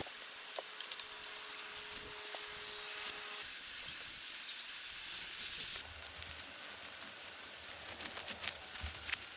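Quiet woodland ambience with scattered light rustling and small clicks of sticks and dry plant material being handled, one sharper click about three seconds in.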